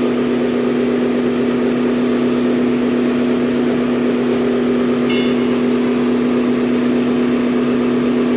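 An engine running steadily at an even idle, with a brief faint high-pitched squeak about five seconds in.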